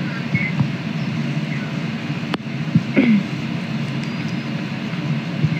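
Steady low hum of background machine noise, with a single sharp click about two seconds in and a brief murmur of a voice around three seconds in.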